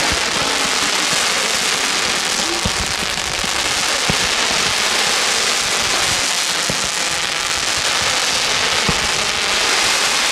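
Fireworks going off: a dense, steady crackling hiss like heavy rain, with scattered short low thumps throughout.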